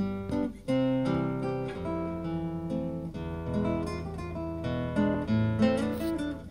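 Solo classical guitar played fingerstyle: plucked melody notes over ringing bass notes.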